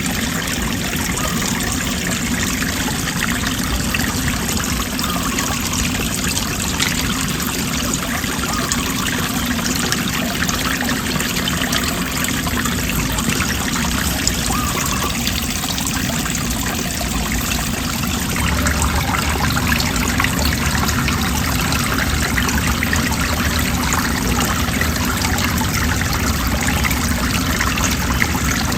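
Motorcycle ride: a steady rush of wind noise over the microphone with the engine running underneath, getting a little louder about two-thirds of the way through.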